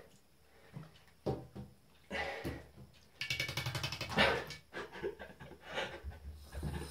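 Wet cat in a bathtub shaking the water out of its coat in quick rattling bouts, with the biggest shake about three seconds in.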